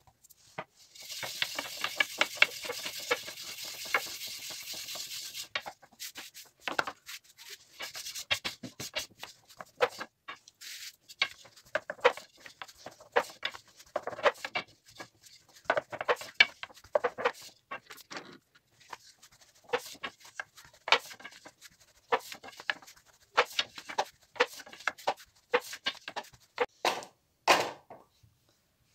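Dough for a yufka sheet being worked by hand on a floured granite counter, first a steady rubbing hiss for about five seconds, then a long thin wooden rolling pin rolling it out with irregular clacks and knocks of wood on stone.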